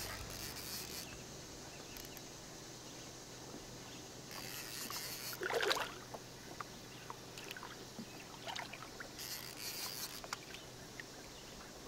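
Faint water sounds beside a boat hull as a hooked blue catfish swirls near the surface, with one brief louder splash a little past halfway and a few small drips and ticks after it.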